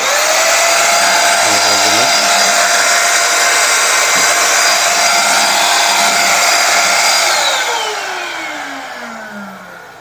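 A Weyon 400-watt mini handheld vacuum cleaner switched on, its motor spinning up with a quick rising whine, then running loud and steady with a high whine while it is pushed across the floor. About seven seconds in it is switched off, and the whine falls away as the motor winds down.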